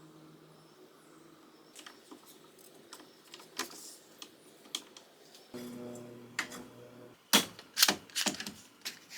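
Metal parts of a homemade vise support being handled and adjusted: scattered sharp clicks and knocks, then a quick run of loud metal clanks near the end. A low hum sounds for a little over a second partway through.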